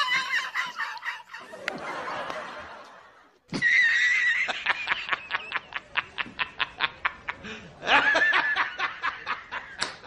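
Laughter sound effect: after a short pause, a high squeal, then a rapid run of short laugh pulses about five a second, and a second laughing burst near the end.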